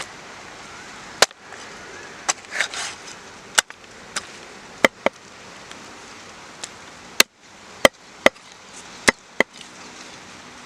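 Knife chopping on a cutting board: about a dozen sharp, irregularly spaced strikes, a few landing in quick pairs.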